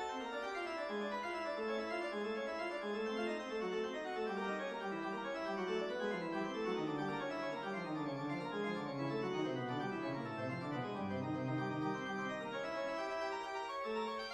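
Keyboard music playing a busy run of quick notes. About halfway through, the notes walk down into the bass, then climb back up near the end.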